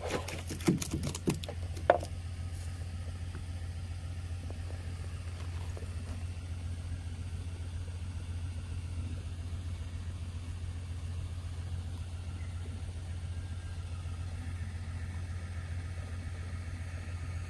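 An engine running steadily with a low, unchanging hum. A few sharp clicks come in the first two seconds, the last of them the loudest.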